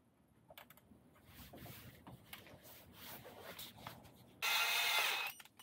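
Faint scraping and handling of small parts, then about four seconds in a cordless drill-driver whirs steadily for about a second, running a threadlocked screw into the aluminium chassis brace.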